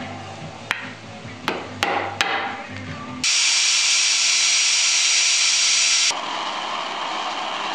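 A few sharp taps of a chisel trimming a dowel on a wooden lid, then a handheld drill spinning a sanding disc on the lid: a loud, high whir for about three seconds from midway, dropping to a lower, quieter grind near the end.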